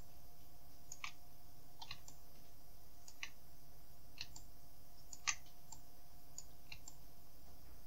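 Scattered, irregular clicks of a computer mouse and keyboard used at a desk, about a dozen in all, the loudest about five seconds in, over a faint steady hum.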